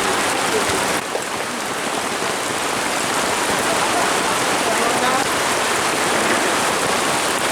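Heavy rain falling steadily, a dense even hiss, with faint distant voices calling now and then.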